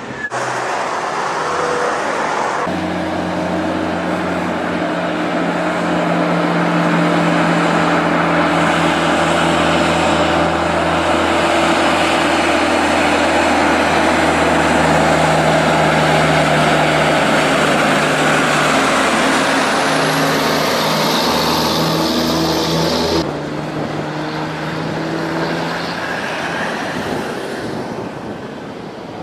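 Diesel engines of heavy-haulage trucks running as they pull oversize loads past, with tyre and traffic noise; a steady engine drone holds for most of the stretch. A thin high whine rises about two-thirds of the way in.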